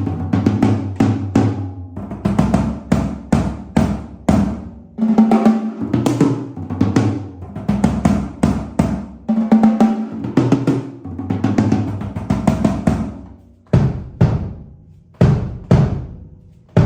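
MK drum kit with stock heads and cymbals, played raw: rapid hits and fills around the kit on snare, toms and bass drum. The playing thins to a few spaced single strikes near the end.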